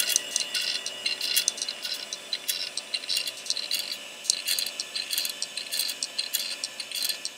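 Failing IBM SCSI hard drive running with its top cover off, making an irregular clicking and rattling over a steady whine.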